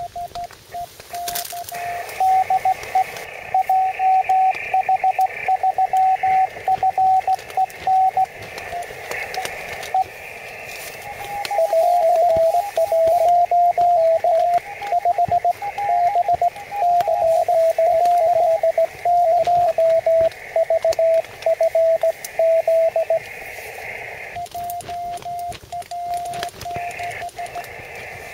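Morse code (CW) from a QRP shortwave transceiver: a single steady beep keyed on and off in dots and dashes over band hiss. About eleven seconds in, a second, slightly higher-pitched signal overlaps for a few seconds.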